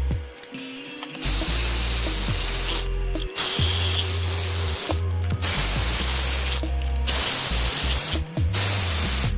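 Four bursts of spraying hiss, each a second or two long with short breaks between, over background music with a steady bass line.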